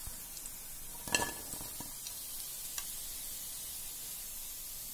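Hot oil sizzling steadily as besan gatte deep-fry in a kadhai, with a sharp knock about a second in and a fainter one a little later.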